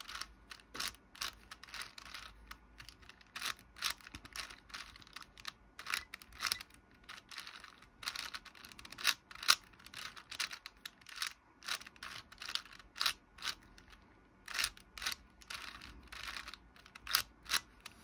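Layers of a 4x4 Rubik's cube being turned, giving runs of irregular sharp clicks and clacks as an edge-parity algorithm is worked through.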